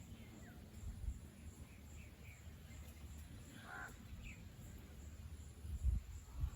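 Outdoor ambience: wind rumbling low and uneven, with gusts thumping near the start and near the end. Faint bird chirps come through, and one short, harsher bird call sounds a little under four seconds in.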